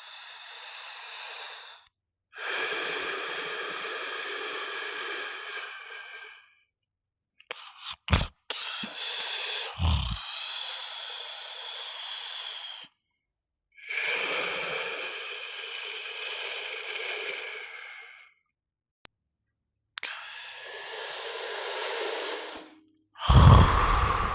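A person snoring: a run of long, noisy breaths of about four to five seconds each, with short silences between them. Brief low bursts come about eight and ten seconds in, and a louder one near the end.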